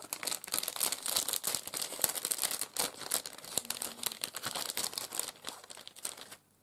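Clear cellophane packaging crinkling as hands handle it, a dense run of fine crackles that stops abruptly near the end.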